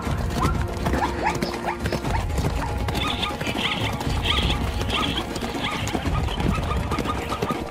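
Zebras calling: a run of short rising yelping barks at first, then a series of higher short calls, over galloping hooves.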